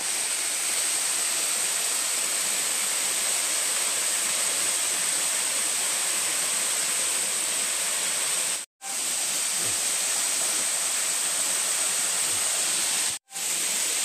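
Water tumbling over a small rocky cascade: a steady, even rush of noise. It cuts out abruptly to silence twice, briefly, near 9 s and 13 s.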